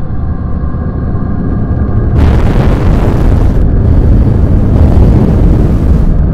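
Very loud, distorted low rumble; about two seconds in, a harsh hissing noise cuts in over it and the whole sound gets louder.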